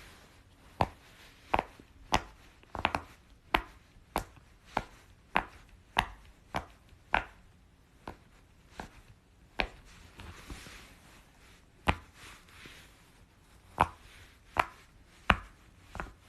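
Silicone pop-it fidget toy bubbles being pressed one after another, each giving a sharp pop-click, roughly one every half to two-thirds of a second.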